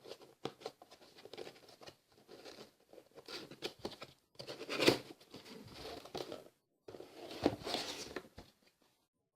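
Cardboard keyboard box and its paper packing being handled and opened: irregular rustling and crinkling, with a couple of sharper knocks, one near the middle and one later on.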